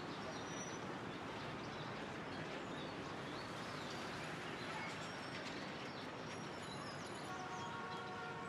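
Faint steady outdoor background noise with a few faint bird chirps. Near the end, a faint held tone.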